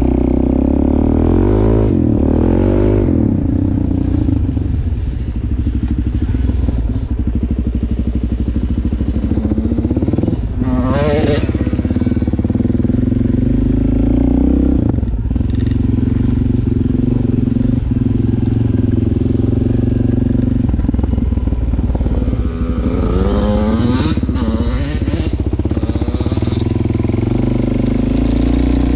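Dirt bike engine running throughout, its revs rising and falling a few times as it is ridden: once or twice near the start, about a third of the way in, and again near the end.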